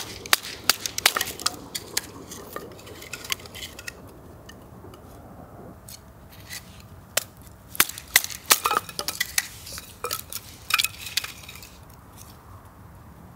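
Irregular clicks and clinks of camp gear being handled, in two clusters with a lull between.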